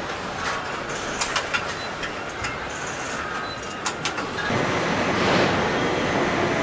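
Car assembly-line factory noise: a steady hum of machinery and conveyors with a few sharp metal clinks of hand tools in the first four seconds. The noise gets louder about four and a half seconds in.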